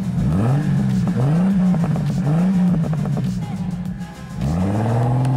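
Jeep Cherokee's AMC 4.0 straight-six revved three times in quick blips. About four seconds in, the revs climb again and hold steady as it pulls away in snow.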